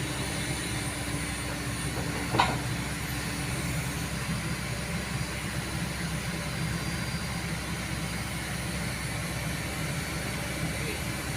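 Kobelco excavator's diesel engine running steadily while it works. A short sharp sound, the loudest moment, comes about two seconds in.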